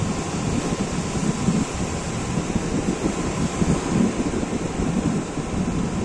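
Small sea waves breaking and washing up a beach in a steady surf noise, with wind buffeting the microphone in an uneven low rumble.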